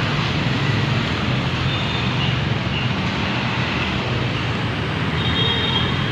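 Steady road traffic: light trucks and cars driving past close by, their engines running and tyres on the road.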